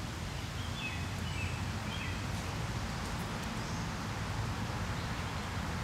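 Steady outdoor background noise with a low rumble, and a few faint bird chirps in the first two seconds.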